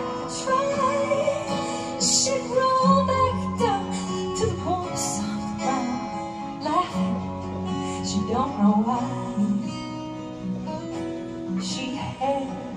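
Live acoustic music: a strummed acoustic guitar accompanying a woman singing long, sliding vocal runs.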